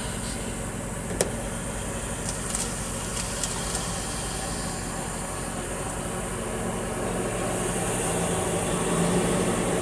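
Semi-truck diesel engine running steadily, with a single sharp click about a second in and a few faint ticks soon after; the engine grows a little louder in the second half.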